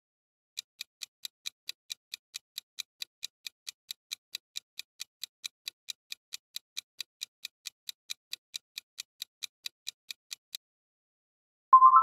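Clock-ticking countdown sound effect, about four to five ticks a second for roughly ten seconds, then a loud bright chime near the end that steps up in pitch and rings out, marking the end of the countdown.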